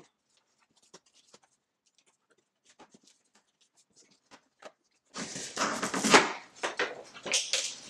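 Faint scattered clicks and scrapes as staples are worked out of a cardboard box lid, then, about five seconds in, loud tearing and scraping of the stapled cardboard flaps being pulled open.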